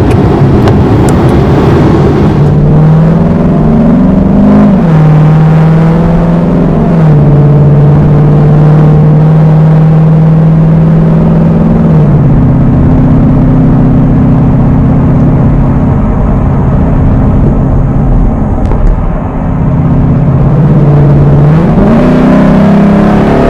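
Ford Mustang S550 with a full Borla exhaust and X-pipe, heard from inside the cabin while driving: the engine note climbs and drops several times with throttle and gear changes, with a sudden step up about halfway through. It follows about two seconds of a Ferrari FF's V12 from inside its cabin.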